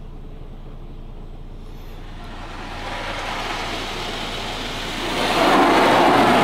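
Car wash spot-free rinse water spraying onto a car, heard from inside the cabin: a steady hiss of spray on the roof and windows that grows louder about two and a half seconds in and again near the end as the spray comes closer.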